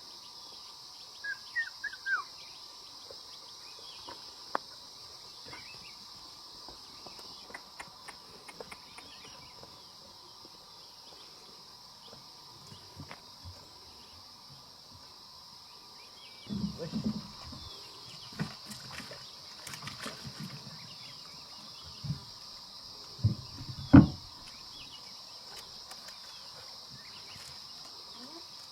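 Forest ambience: insects droning steadily at two high pitches, with a few short bird chirps. Several dull knocks or thumps about two-thirds of the way in, the loudest one sharp, near the end.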